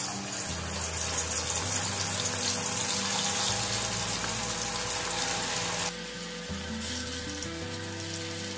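Marinated chicken pieces deep-frying in hot oil in a kadai: the oil sizzling and bubbling steadily around the pieces as more are dropped in. The sizzle eases a little about six seconds in.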